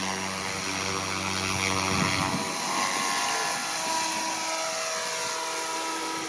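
ALZRC Devil 380 FAST electric RC helicopter in flight: the whine of its electric motor and the noise of its rotor blades, steady over a haze. A low hum drops out a little over two seconds in, and the whine falls in pitch through the middle as the helicopter passes.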